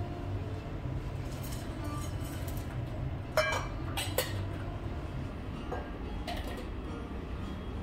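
Three quick metallic clinks of stainless steel cat food bowls about halfway through, the first the loudest and ringing briefly, over a steady low room hum.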